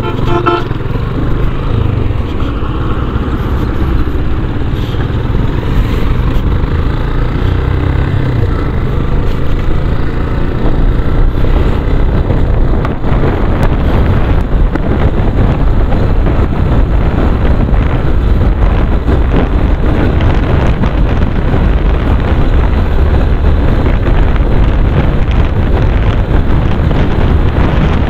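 Motorcycle engine running under way, its note shifting in the first several seconds. As the bike speeds up on paved road, wind rushing over the microphone takes over.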